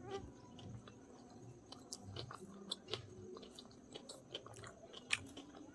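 A person chewing a mouthful of chicken biryani, with irregular wet mouth smacks and clicks over soft low chewing thumps.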